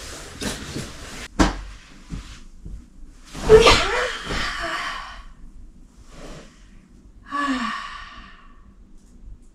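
A woman flops backwards onto a bed: a soft thud and rustle of bedding with a loud gasping exclamation. About four seconds later comes a single sigh with a falling pitch.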